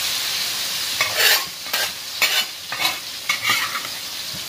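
Ground spice paste sizzling in hot oil in an aluminium wok, with a metal spatula scraping and stirring it in about five quick strokes between one and four seconds in.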